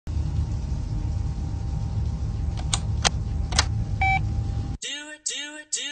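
A steady low rumble with three sharp clicks around the middle, then a short electronic beep. The rumble cuts off suddenly near the end, and a song with singing begins.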